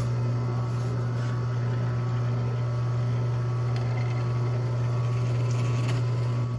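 Drill press motor running with a steady low hum while a twist bit bores screw holes in a hardwood strip. A few sharp clicks come near the end.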